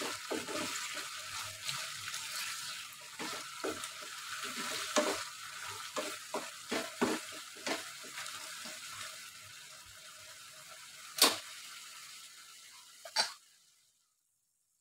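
Sweet-soy stir-fry of kikil and tofu sizzling in a non-stick wok while a wooden spatula stirs it, scraping and tapping the pan a dozen or so times. The stirring stops after about nine seconds and the sizzle thins, with two sharp knocks near the end before the sound cuts out. The dish is at the end of its cooking, the sauce reduced down.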